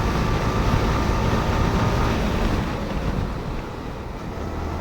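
Yamaha R15 V4's single-cylinder engine running while the motorcycle is ridden, mixed with wind rush on the microphone. The engine tone fades and the level drops after about two to three seconds.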